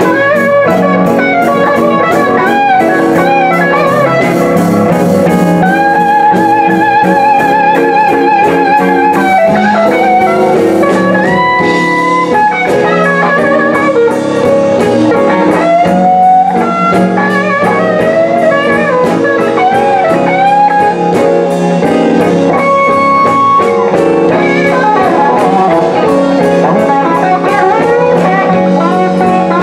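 Live electric blues band playing a slow blues. An electric guitar carries the lead with held, bent notes and wide vibrato over drums, bass and rhythm guitars.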